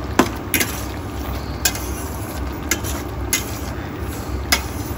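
Slotted metal spatula stirring chicken in a stainless steel pan, clinking sharply against the pan about six times, over a steady low hum.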